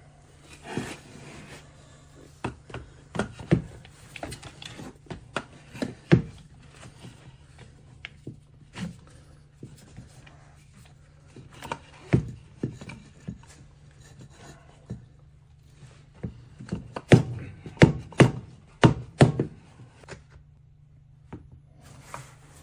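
Irregular knocks, taps and rubbing from objects being handled and set down on a hard surface, with a quick run of louder knocks near the end. A steady low hum lies underneath.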